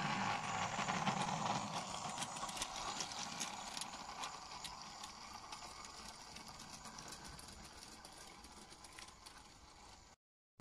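G-scale model Simplex locomotive with a wagon running on garden railway track: a steady motor and gear hum with quick clicking and rattling from the wheels on the rails, fading steadily as the train moves away.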